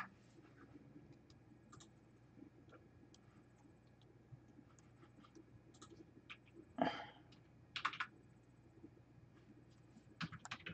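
Mostly near silence, with scattered faint clicks, a short rustle about seven seconds in, and a few more clicks near the end.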